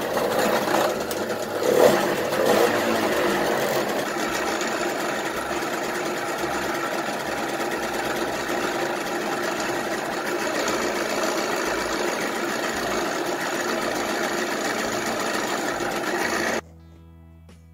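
1997 Kinetic Luna TFR's 50cc two-stroke engine running just after a pedal start, revved briefly a couple of times in the first few seconds, then running steadily. The sound cuts off suddenly near the end.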